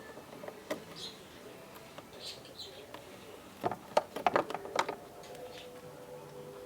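Scattered light clicks and tool clatter as a screw is backed out of a car's plastic air intake duct, busiest for about a second around four seconds in, with faint bird chirps in the background.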